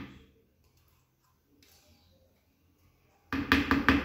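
Mostly near silence; a little over three seconds in, a loud, fast, even tapping of about six strokes a second starts abruptly over a steady low hum.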